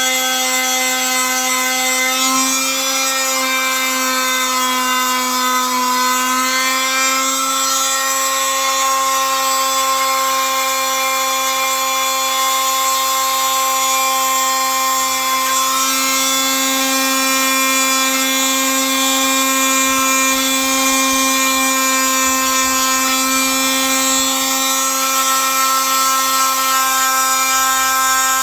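A handheld electric power tool runs steadily at a constant speed, its pitch dipping slightly a few seconds in and then holding level.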